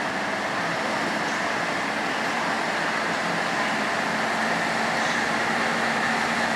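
Class 56 diesel locomotive's Ruston-Paxman V16 engine running as it approaches hauling freight wagons, a steady drone growing slowly louder.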